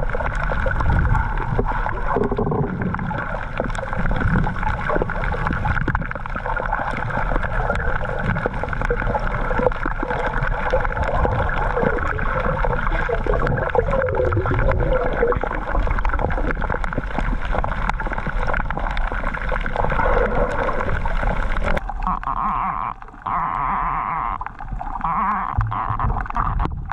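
Underwater sound picked up through an action camera's housing: muffled water noise with a steady drone and a low rumble. About 22 seconds in, the higher sounds drop away and the sound becomes more hollow.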